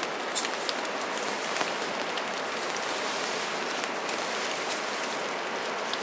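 Steady rain falling, with a few sharper drops ticking now and then.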